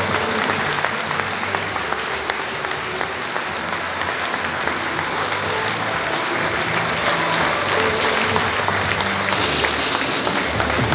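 A large audience applauding, steady and sustained: a standing ovation at the end of a speech.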